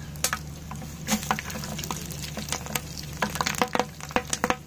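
Mutton curry frying in oil in a metal pot, sizzling with irregular sharp pops and crackles over a steady low hum.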